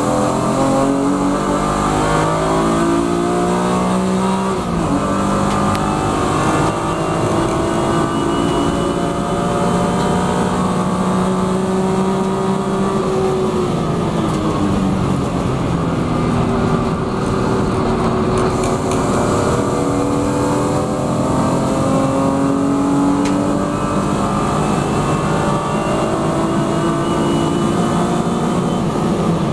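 In-car sound of a BMW E36 M3 Evo's straight-six racing engine pulling hard at full throttle, its note climbing through the gears with upshifts about four and a half and thirteen seconds in, over steady wind and road noise.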